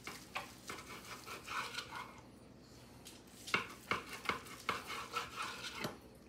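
Long slicing knife sawing through the crusty bark and meat of a smoked brisket point on a wooden cutting board: short scraping, crackling strokes with sharp clicks. The strokes pause for a moment in the middle, then come quickly, about three a second, near the end.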